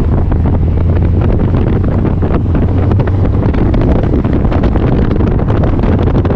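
2020 Subaru WRX STI's turbocharged flat-four engine droning at a steady pitch while driving, with heavy road and wind noise over it.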